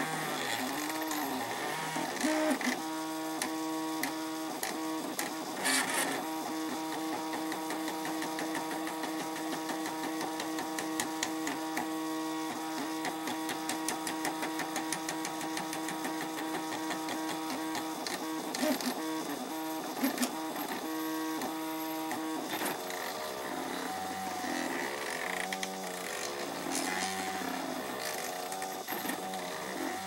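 Stepper motors of a plywood-and-acrylic 3D printer whining as the print head moves during a print. For most of the middle stretch the whine holds one steady pitch; at the start and near the end the tone rises and falls quickly with each short move, with occasional light clicks.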